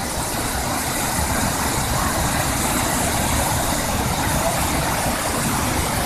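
Steady rushing of a waterfall, along with the water spilling over a low weir at its foot.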